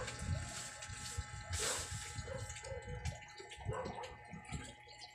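Pet hedgehogs moving about on a wooden board: scattered light ticks and scratches, with one short hissing puff about a second and a half in.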